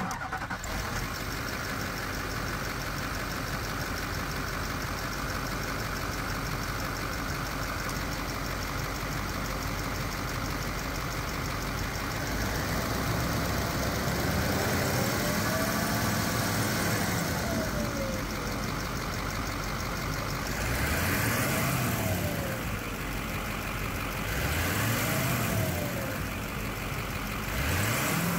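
A 2009 GMC K3500's 6.6-litre Duramax V8 turbo diesel idles steadily with diesel clatter. About halfway through it is revved up and let fall back, one long rev followed by three short throttle blips, the last near the end.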